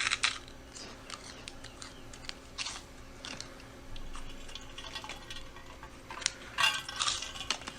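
Close-miked crunching and chewing of puffed shrimp chips (prawn crackers), irregular crisp crunches one after another.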